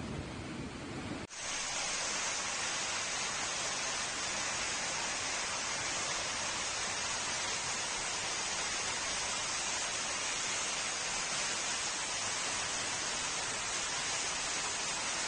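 Rainwater rushing down a flight of steps as a steady hiss, after an abrupt cut about a second in from a brief stretch of storm rain and wind.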